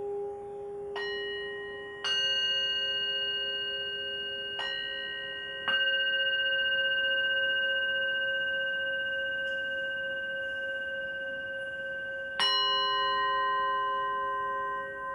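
Metal singing bowls struck with a mallet five times, about a second in, twice more in quick succession, and near the end, each strike ringing on with several long overlapping tones. Under the strikes a lower bowl tone keeps ringing with a slow wavering beat.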